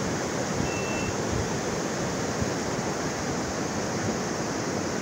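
Swollen, muddy floodwater of a mountain river rushing past in a steady, heavy torrent.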